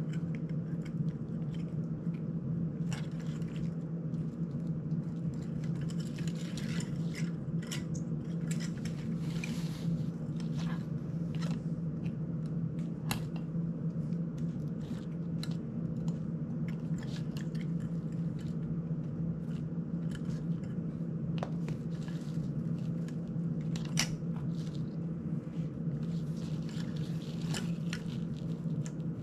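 Scattered small clicks and ticks of hands handling a GEPRC CineLog 35 FPV drone's frame, screws, wires and plastic propellers during repair, over a steady low hum.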